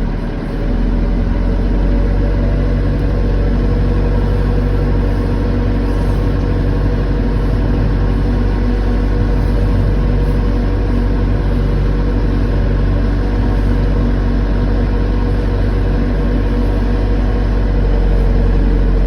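Backhoe's diesel engine running steadily while the machine reverses.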